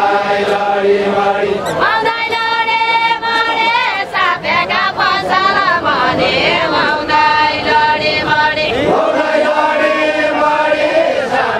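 A deuda folk song sung together by a group of men and women linked arm in arm, their voices joined in a chant-like melody. The singing rises to a higher, stronger line about two seconds in.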